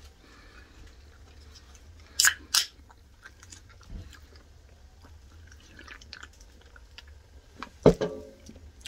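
A person chewing a mouthful of frybread chili dog, with small wet mouth clicks throughout. Two sharp loud clicks come a little over two seconds in, and a short loud sound from the throat comes near the end.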